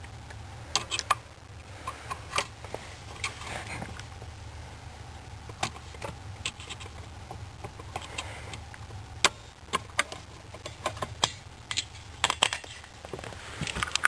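Scattered small plastic clicks and taps, some in quick clusters, from fingers handling a brake light switch on the brake pedal bracket, over a steady low hum.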